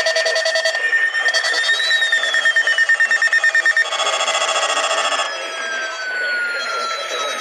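Several weather alert radios sounding their alarms at once: overlapping rapid electronic beeping at different pitches, with one tone that slides up and then glides slowly down. This is the radios signalling a received warning. One alarm cuts off about four seconds in and another a second later, while the rest keep sounding.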